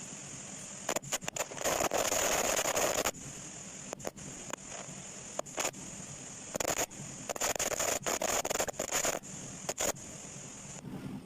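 Broken-microphone sound effect: a steady static hiss broken by sharp crackles and pops, with two longer bursts of loud scratchy crackling, about two seconds in and again from about seven to nine seconds. It cuts off suddenly near the end.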